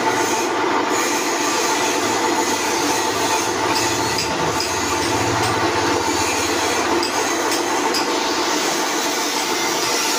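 Large pillar drill press running steadily, a mechanical whir with a held whine, as its bit drills holes through small flat pieces held by hand on the table. A few light clicks come as the pieces are shifted.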